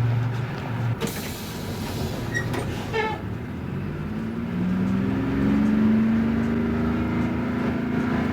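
City bus: a sudden hiss of air about a second in, lasting about two seconds, then the engine rising in pitch in steps as the bus pulls away.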